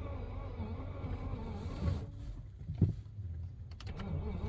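Wavering electrical buzz and whir from a BMW 528i with the key on, the noise the owner singles out while the car won't start. A couple of dull thumps follow, then a few sharp clicks near the end.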